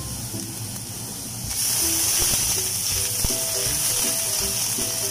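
Minced aromatics sizzling in hot oil in a wok. The sizzle jumps much louder about a second and a half in, and a spatula stirs and scrapes through them later on, with a sharp click near the three-second mark.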